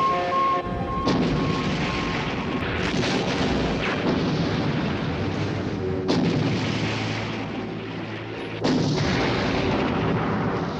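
Film sound effects of a barrage of explosions, with sudden heavy blasts about a second in, around six seconds and near nine seconds, each followed by a long rumbling wash.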